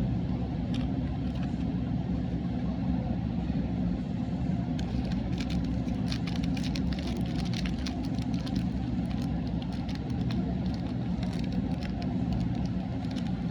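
Steady low rumble, with a run of rapid crackling clicks from about five seconds in until near the end.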